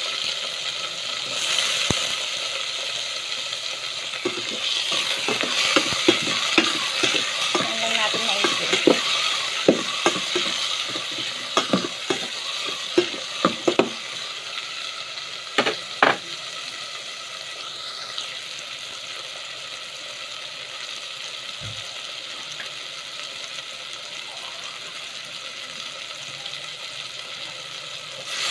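Sliced tomatoes, onion and garlic sizzling in hot oil in a metal pot. From about four seconds in to about sixteen seconds, a metal spoon stirs them, scraping and clinking against the pot. After that the sizzle carries on more quietly.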